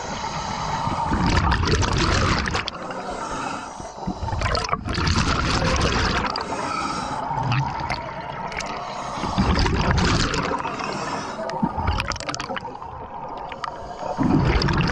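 Scuba diver breathing through a regulator underwater: hissing inhales alternating with bubbling bursts of exhaled air, about every four seconds.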